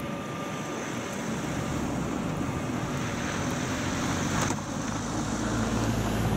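A car approaching on a snow-covered road and passing close by, its engine and tyres growing louder as it nears. A brief rush of noise comes about four and a half seconds in.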